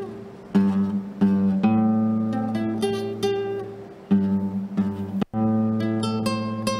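Acoustic guitar playing slow plucked chords, each struck and left to ring. The sound cuts out for a split second about five seconds in.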